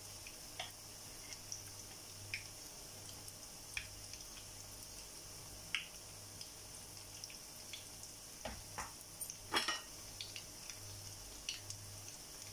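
Batter-coated bananas deep-frying in rice bran oil in a nonstick pan: a steady high sizzle with scattered pops. A cluster of louder clicks comes about nine to ten seconds in.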